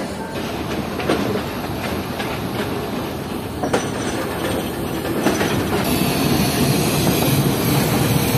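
Passenger train wheels rolling slowly over station track, with irregular clacks over rail joints and points, growing louder toward the end.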